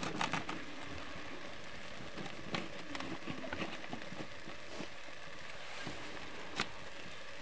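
Wet masala gravy sizzling and bubbling in a hot aluminium kadai: a steady hiss with scattered crackles and one sharper pop about six and a half seconds in.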